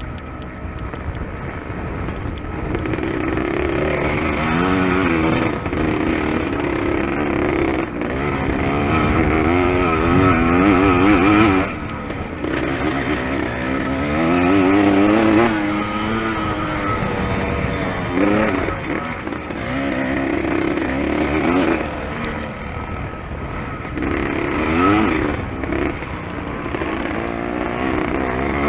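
Dirt bike engine heard from on board, revving up and easing off again and again under hard throttle, its pitch rising and falling with each burst; the throttle shuts off briefly twice, about twelve and twenty-two seconds in.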